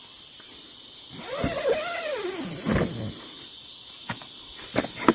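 Steady, high-pitched chorus of night insects such as crickets, with a single short call that rises and falls in pitch about a second in, and a few light clicks.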